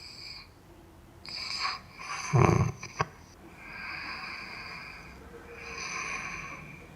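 Loud, slow breathing of a man asleep wearing a head-worn anti-snoring strap, with one short snore about two and a half seconds in. The strap has mostly stopped his snoring, leaving almost only very loud breathing.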